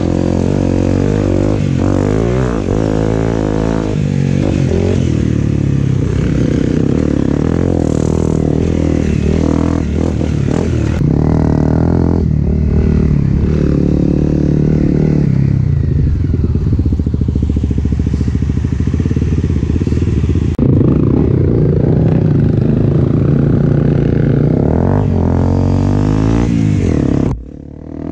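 Off-road vehicle engine running hard on a dirt trail, its pitch rising and falling as the throttle is worked. The sound drops away abruptly for a moment near the end.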